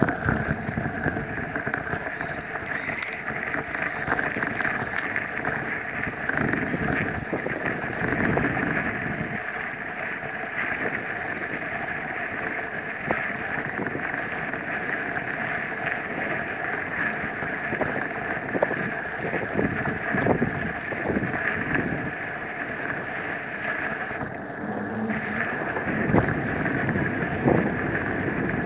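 Wind rushing over a phone's microphone while riding a bicycle, a steady blustery noise with small knocks and rattles, dipping briefly near the end.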